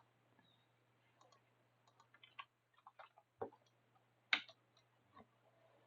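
Faint, irregular clicking at a computer: a dozen or so scattered key and button clicks, with two louder clicks in the middle.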